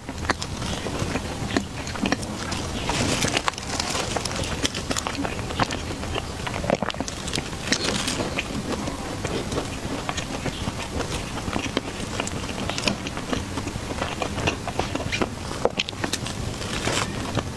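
A person biting and chewing food close to the microphone: many small clicks and crackles over a soft, steady background.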